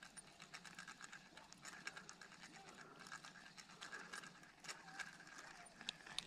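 Faint, dense clicking and whirring of a spinning reel being cranked as a lure is retrieved.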